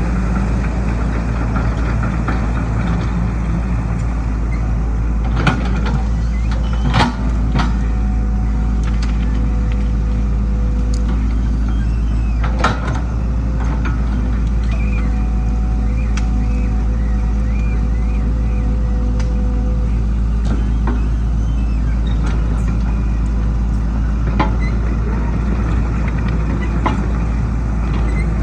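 Hyundai 220LC excavator's diesel engine running steadily under work, with a few sharp knocks and a higher steady tone that comes and goes in the middle.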